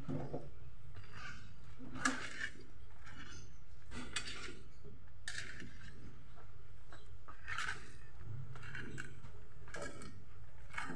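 Hands squeezing and kneading chopped banana blossom in a stainless steel tray: irregular wet rustling and scraping strokes every second or two, with light knocks against the metal tray. A low steady hum sits underneath.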